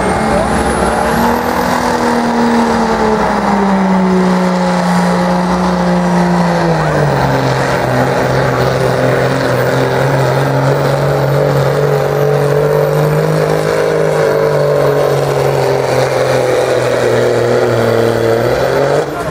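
Second-generation Dodge Ram's Cummins diesel under full throttle, pulling a weight-transfer sled. Its note drops in pitch in steps over the first seven seconds as the sled's load builds and the engine lugs down. It then holds steady and breaks off near the end.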